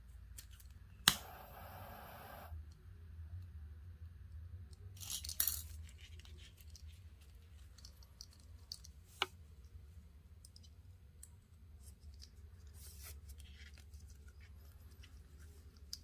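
Scissors snip through paracord about a second in, followed by about a second and a half of rushing noise. After that come short rustles of the cord being handled and a few light clicks, over a steady low hum.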